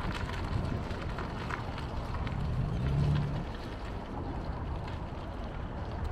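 BMW M4's S55 twin-turbo inline-six running as the car is driven, under a steady low rumble, with the engine note swelling briefly about halfway through.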